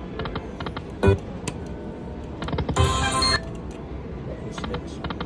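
Lightning Link slot machine in play: a run of short clicks, a sharp knock about a second in, and an electronic chime jingle a little before the middle.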